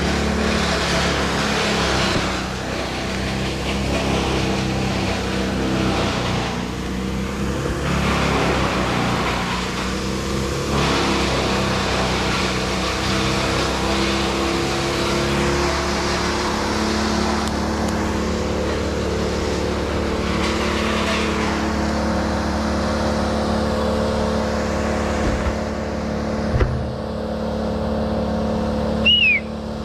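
An engine running steadily, its pitch shifting a little as it works, with a sharp knock near the end.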